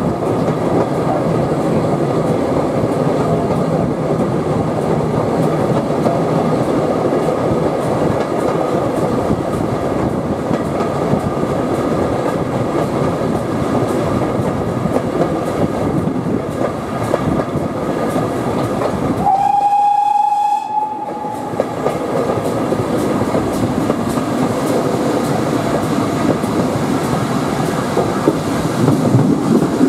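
Steady rolling and rattling of a heritage train carriage heard from an open window, wheels clicking over the rail joints. About two-thirds of the way through, a GWR steam locomotive gives one steady whistle blast of about a second and a half.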